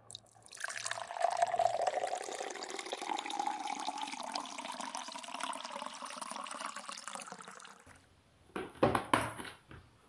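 Water running into a container, its pitch rising slightly as it fills, then cut off suddenly; a few clunks follow near the end.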